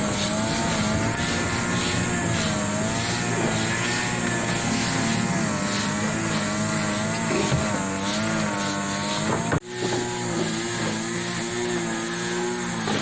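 A motor vehicle's engine running while on the move, its pitch drifting up and down with speed. It breaks off abruptly for an instant about ten seconds in.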